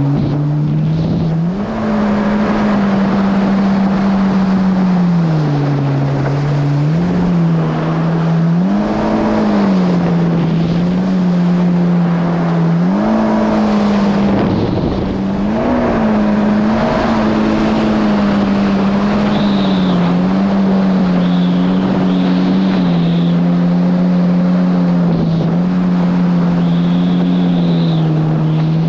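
2019 Yamaha GP1800R SVHO jet ski's supercharged four-stroke engine running hard, its pitch rising and falling again and again with the throttle over a steady rushing noise. A short high whine comes and goes several times in the second half.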